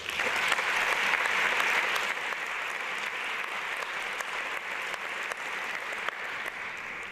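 Audience applauding: many hands clapping together in a dense, steady patter that builds within the first second or two and eases off slowly toward the end.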